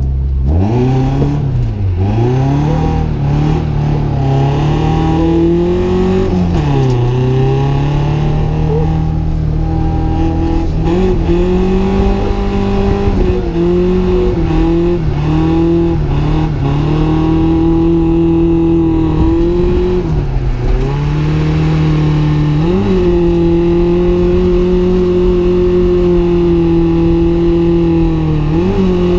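Drift car engine at high revs. The note is held high for long stretches, then drops and climbs back about five times as the throttle is lifted and reapplied.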